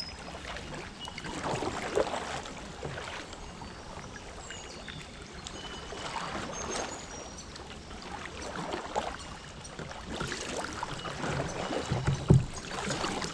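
Kayak paddles dipping and splashing in slow creek water, a stroke every second or so, with a louder low knock near the end.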